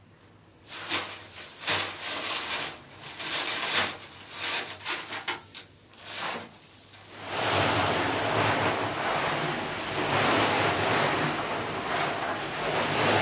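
Bunches of metal chain rattling and scraping in irregular bursts as they are hauled out of a drum of wet slurry. From about seven seconds in, steady water sloshing and splashing as the chains are swished through a tub of water to rinse them.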